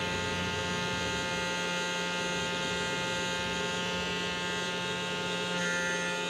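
Small DC motor of a homemade plastic-bottle mini vacuum cleaner running at steady speed, giving an even electric whine.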